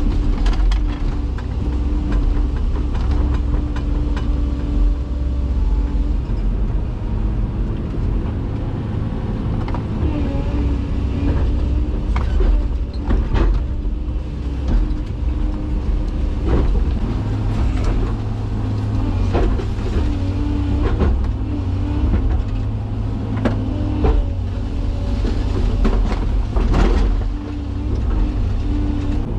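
Komatsu PC228 excavator's diesel engine and hydraulics running steadily under load, with a strong low rumble and a steady whine. From about a third of the way in, repeated sharp cracks and snaps come over it, several close together.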